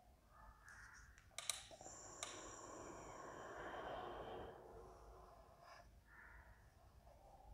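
Faint strokes of a marker pen drawing on a whiteboard, with two sharp clicks about one and a half and two seconds in.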